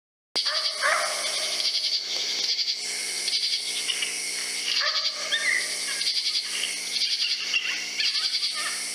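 Animal distress calls from an electronic predator caller, many short cries gliding up and down over a steady hiss.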